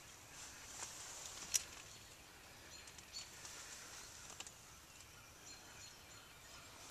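Quiet outdoor field ambience: a faint steady high hiss with a few small clicks and rustles, one sharper click about a second and a half in.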